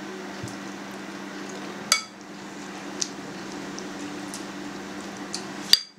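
Metal spoon clinking against a bowl a few times while stirring chilled cream into shredded mozzarella strands, the loudest clink near the end, over a steady low hum.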